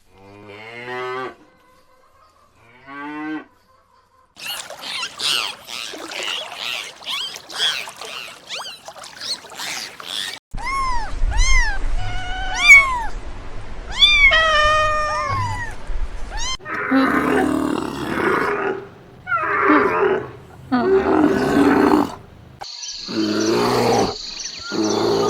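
A run of different animal calls, one after another. It opens with short pitched calls, then comes a stretch of repeated high arching calls, then deeper calls in spells in the second half.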